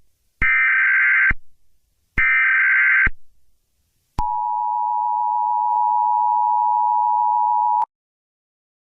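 Emergency Alert System tones: two buzzing SAME data bursts about a second long each, then the two-note EAS attention tone held steady for about three and a half seconds before it cuts off abruptly.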